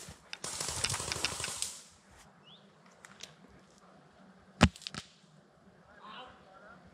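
Brief rustling, then two sharp airsoft gun shots about a third of a second apart.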